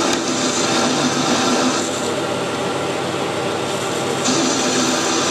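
Metal lathe running, with a parting-off tool cutting into a spinning metal bar held in a collet chuck. The higher part of the cutting noise drops away for about two seconds midway, then returns.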